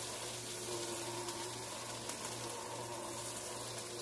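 Onions, carrots and celery sizzling gently in butter and flour in a PowerXL StirMax multi cooker as its motorised stirring paddle turns them, with a steady low hum underneath. This is the flour cooking before the broth goes in.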